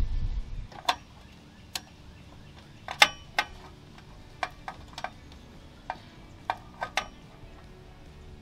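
Sharp metallic clicks and clinks of a ratchet wrench, lock washers and a nut on an exhaust hanger bolt, coming singly and irregularly about every half second to a second as the hardware is fitted and the nut turned. The loudest clink comes about three seconds in.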